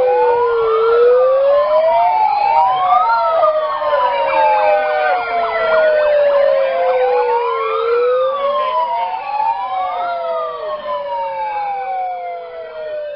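Several siren wails overlapping, each rising quickly and then falling slowly over a few seconds, repeating without a break and fading near the end.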